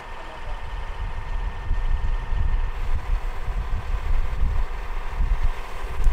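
Terex Commander digger derrick truck's engine running, with a faint steady whine over an irregular low rumble that rises and falls.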